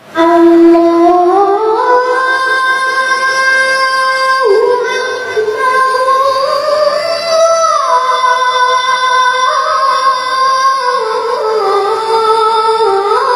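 A boy's voice chanting the adhan, the Islamic call to prayer, into a microphone. It begins suddenly and holds long notes that step and slide up and down, with ornamented turns.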